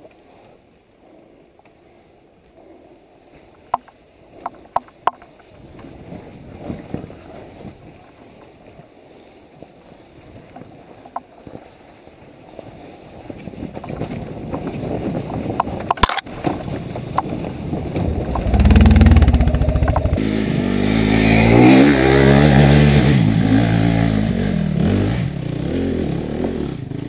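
Off-road motorcycle engine. It is faint at first, with a few sharp clicks, then builds from about halfway and runs loud near the end, the revs rising and falling.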